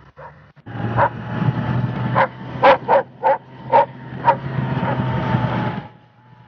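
A dog barking about seven times in quick, uneven succession over the steady, loud running of a snowmobile engine. The engine comes in just under a second in and drops away near the end.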